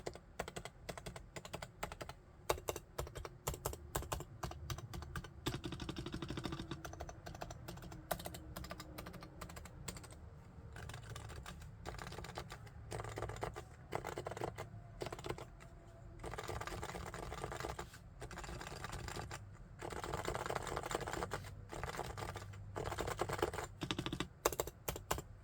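Realforce R3 tenkeyless Bluetooth keyboard with silent Topre electrostatic capacitive switches (45 g actuation) being typed on, keystrokes coming in fast continuous runs broken by short pauses.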